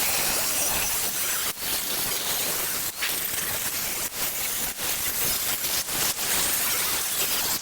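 A power cutting tool cutting into the steel shell of an old well expansion tank: a loud, steady, noisy rasp that starts abruptly, with brief dips about once a second.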